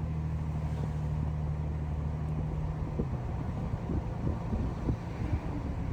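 A car driving: a steady low drone for about the first three seconds, then irregular low bumps and rumble.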